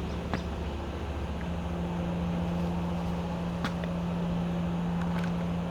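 Steady engine hum with a low drone beneath, growing a little stronger about a second in, with a few faint clicks.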